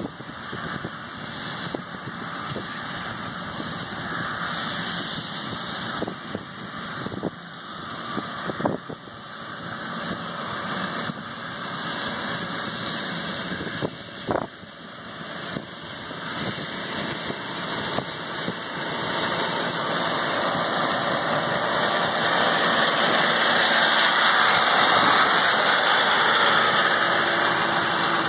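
Ride-on grass mower's engine running steadily, getting louder over the last third as the machine comes close. A few sharp thumps sound in the first half.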